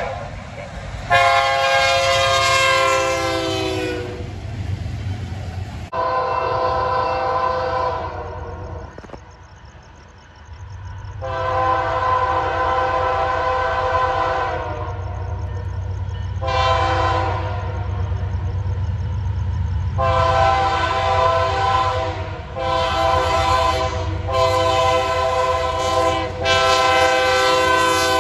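Diesel locomotive horn blowing a series of long and short blasts for a grade crossing, over the low drone of the locomotives' engines. Between blasts a crossing bell rings. Near the end the horn's pitch slides down as the lead CPKC locomotive passes close by.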